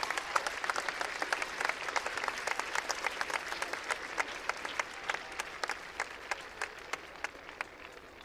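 Large crowd applauding: dense, many-handed clapping that dies away over the last couple of seconds.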